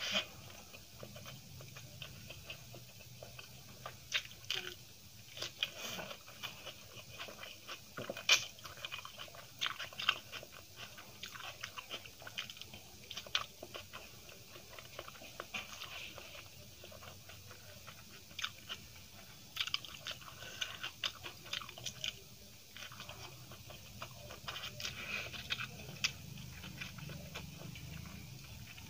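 A person chewing and biting a mouthful of rice and potato curry eaten by hand, with frequent irregular sharp clicks and mouth sounds.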